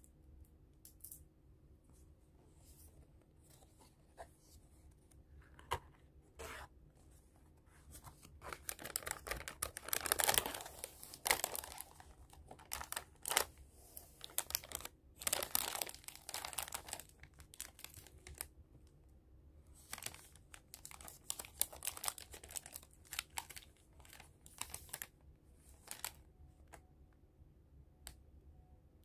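Cardboard cake box being opened and a foil-wrapped cake handled: a few light clicks at first, then tearing and crinkling of cardboard and foil wrapper in bursts, loudest from about eight to seventeen seconds in, with lighter crinkles later.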